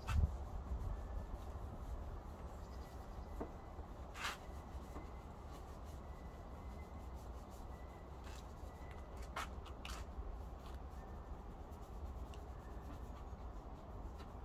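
Faint rubbing of a brush working wood glaze onto OSB board, with a few sharp clicks and knocks, over a low steady rumble.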